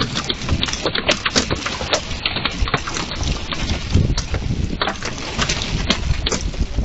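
Quarter-size hail pelting a wooden deck and the yard: a dense, irregular clatter of sharp hailstone impacts over the hiss of rain.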